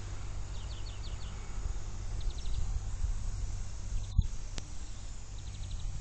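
Wind on the microphone as a steady low rumble, with a small bird calling three short, quick phrases of four or five high chirps each.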